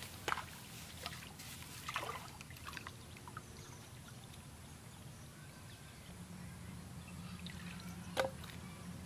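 Hands working in shallow muddy water: small splashes, trickling and dripping, with a sharper splash about eight seconds in.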